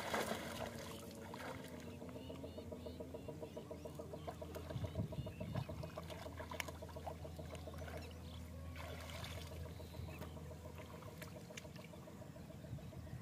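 Water splashing as a wet cast net is lifted out of shallow lake water, then softer sloshing and dripping while the net is gathered by hand in waist-deep water. Under it runs a steady rapid pulsing in the background.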